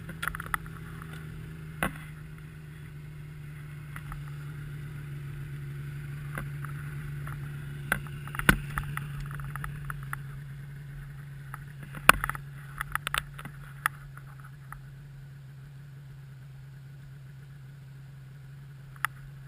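2002 Yamaha SX Viper 700 snowmobile's three-cylinder two-stroke engine idling steadily. Scattered sharp knocks and clicks sound over it, the loudest about halfway through.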